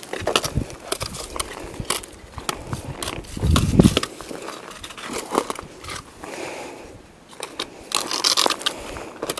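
Footsteps crunching and crackling through dry undergrowth, with scattered sharp snaps, a heavier thump about three and a half seconds in and a dense burst of crackling near the end.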